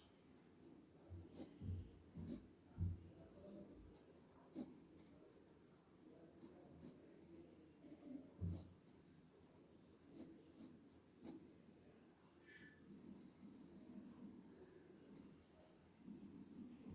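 Faint, quick sketching strokes on paper: scattered short scratches and ticks, with a few soft knocks.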